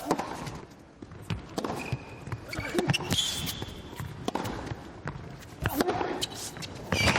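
Tennis rally: a series of sharp ball strikes and bounces, spaced a second or so apart, with a few short, high rubber-sole squeaks on the court in the middle.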